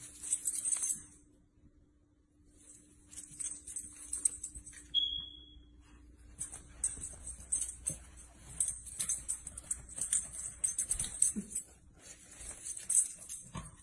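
A dog's metal collar tags jingling in spurts as it scampers and plays, with short pauses between, and a brief high squeak about five seconds in.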